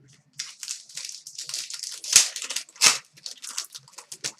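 Foil card-pack wrapper crinkling and tearing as a pack of hockey cards is ripped open, a run of rustles with two sharper, louder rips a little after the middle.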